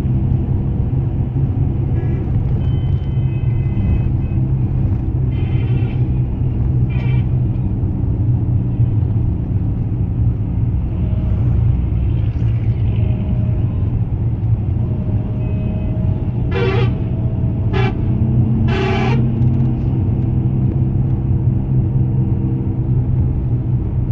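Steady low engine and road rumble of a moving vehicle, heard from inside it. Horns toot now and then, with three short blasts a little past the middle.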